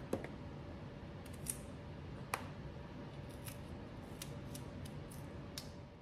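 Paring knife cutting the tops and bottoms off small, firm green tomatoes held in the hand: a scattered series of faint, crisp snips.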